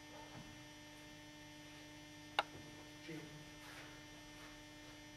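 Steady low electrical hum, with a single sharp click about two and a half seconds in.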